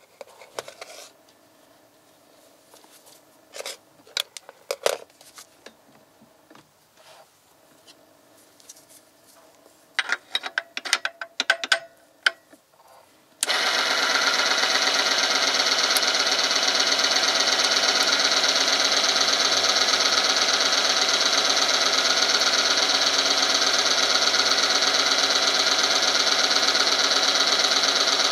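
Oil film strength tester: a few short clinks and knocks while it is filled and set up, then about halfway through its electric motor switches on suddenly and runs steadily. The spinning steel ring rubs against the loaded test sample in the hot oil with a loud, even, high-pitched mechanical whine.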